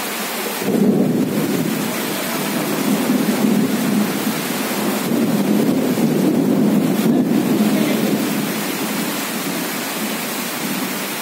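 Steady heavy rain with a long roll of thunder that comes in about half a second in and dies away over the last few seconds.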